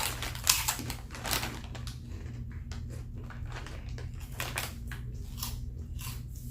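Fried pork skins being bitten and chewed close to the microphone: irregular crisp crunching, densest in the first two seconds and again from about four to five and a half seconds in.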